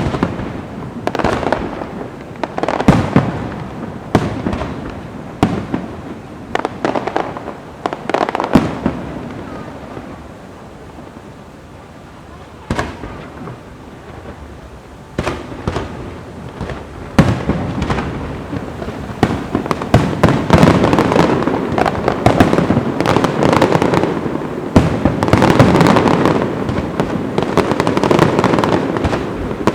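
Fireworks going off: sharp bangs every second or two, a quieter lull near the middle, then dense continuous crackling and popping from about two-thirds of the way through.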